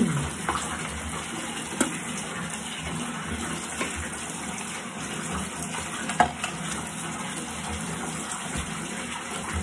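Bathroom sink tap running steadily, with two short splashes, about two seconds in and about six seconds in.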